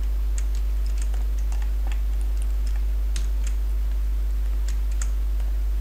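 Computer keyboard keys and mouse buttons clicking irregularly as Blender shortcuts and selections are entered, over a steady low electrical hum.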